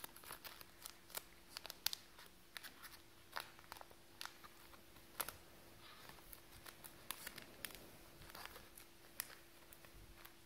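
Faint crinkling and clicking of a plastic trading-card binder sleeve as a football card is handled and slid in and out of its pocket.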